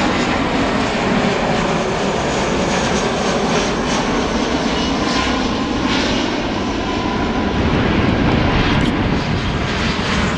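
Jet airliner engines heard from the ground as the aircraft pass low overhead on approach, landing gear down: a steady, loud jet engine noise that does not let up.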